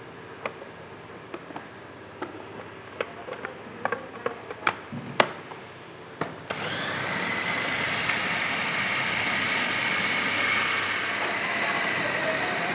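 A few scattered knocks and clicks. About six seconds in, an electric food grinder starts and runs steadily with a high whine, grinding sambal ingredients.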